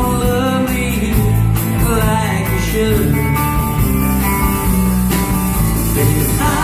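A band playing a country-style song over a steady beat. This stretch carries no clear sung words, and a pitched melody line bends over the bass.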